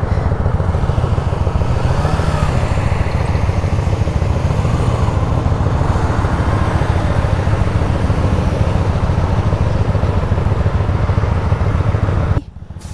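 Motorcycle running, with a steady low rumble of engine and wind noise on the microphone; the sound drops away suddenly near the end.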